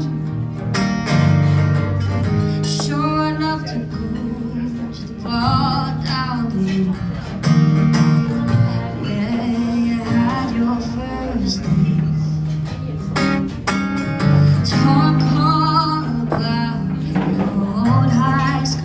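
A woman singing live to her own acoustic guitar, the guitar carrying steady chords beneath phrases of sung melody with a wavering vibrato.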